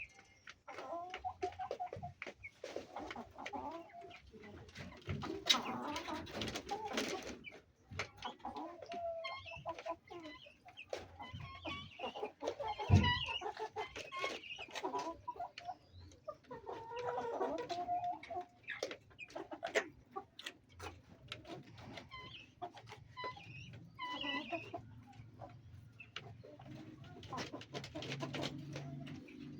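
Domestic chickens clucking on and off, with many short clicks and taps throughout. A single low thump about halfway through is the loudest sound.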